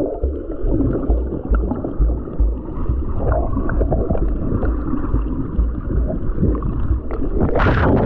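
Water heard underwater through a GoPro's microphone: a muffled, uneven low rumbling and gurgling of water moving around the submerged camera. Near the end a brief splash as the camera comes up by the surface.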